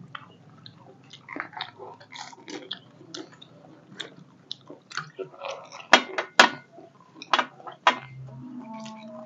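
Close-up chewing and crunching of crisp panipuri shells, with irregular crunches and clicks. Two sharp, loud crunches come about six seconds in.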